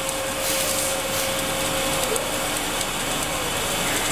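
Steady hiss of a mechanised welding torch on a Kistler welding machine running along a segmented pipe-elbow seam, with a steady machine whine that breaks and wavers about halfway through.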